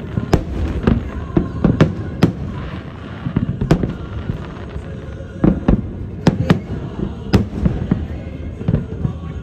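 Fireworks going off: an irregular series of sharp bangs and pops, about a dozen, over a steady low rumble.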